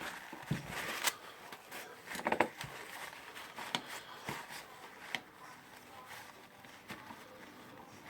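Scattered light clicks and knocks as the parts of a pneumatic blind rivet nut tool are handled during disassembly, with a quick cluster of taps about two seconds in.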